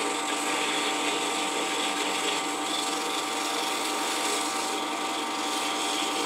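Wood lathe motor running at a steady speed with a steady whine, spinning a cloth buffing wheel, as a wooden tool handle is pressed against the buff with a steady hiss.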